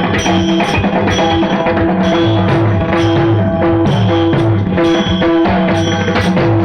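Instrumental passage of kirtan music: held harmonium-like notes over a steady beat of drum strokes, with short bright ringing accents.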